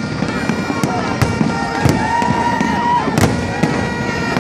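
Aerial fireworks bursting in an irregular barrage of sharp bangs over continuous crackling, with short whistling tones gliding in pitch among the bursts.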